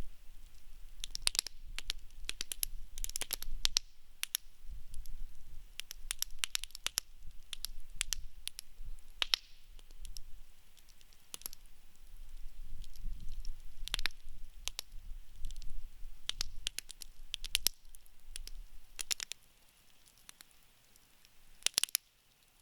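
Wood campfire crackling, with irregular sharp pops and snaps of burning wood. It quietens briefly near the end before a last cluster of pops.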